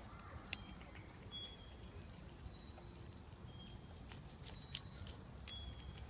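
Scottish fold cat chewing and biting at fresh green leaves on a branch: a handful of faint, sharp crunching clicks, spaced irregularly, over a low steady background rumble.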